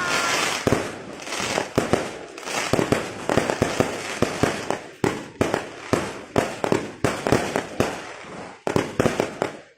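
Fireworks going off in a dense barrage: sharp bangs coming two or three a second, over steady crackling.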